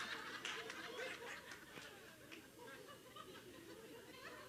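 Faint scattered laughter and chuckling from a congregation, dying away over the first couple of seconds.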